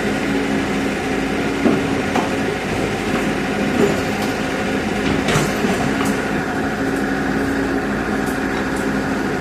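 Heavy earthmoving machine's diesel engine running steadily, with a few brief knocks and clanks of work over it.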